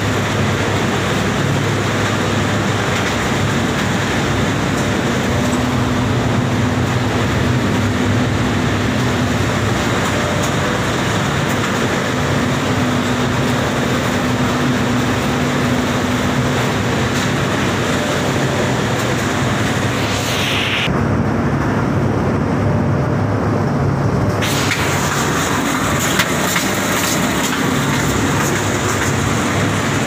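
Plastic film washing line machinery running: a loud, steady mechanical din with a low motor hum. The high hiss drops away for a few seconds about two-thirds of the way through.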